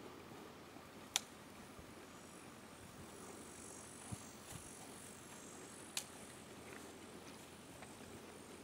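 Faint outdoor ambience with a thin, high insect buzz. Two sharp clicks are the loudest sounds, about a second in and again about six seconds in, with a couple of soft low thuds in between.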